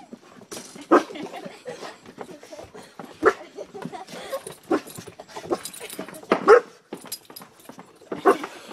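Excited dog whining, broken by short sharp yelps every second or so: a dog greeting its owner after a long absence.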